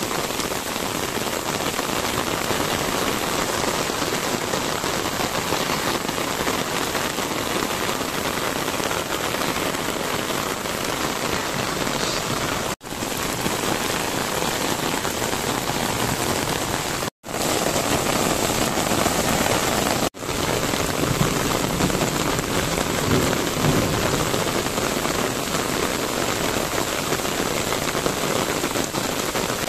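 Steady rain falling, an even hiss, broken by three brief gaps of silence near the middle.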